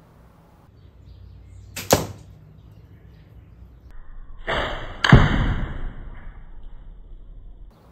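Slingshot shot: a sharp snap of the released rubber bands about two seconds in. About three seconds later, a ringing tone and a loud hit of the shot at the target end, trailing off in a rattle for about two seconds before it cuts off.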